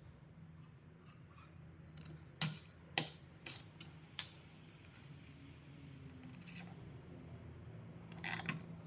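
Several sharp clicks or knocks of small hard objects, four of them between about two and four seconds in, with a short rattling burst near the end, over a low steady hum.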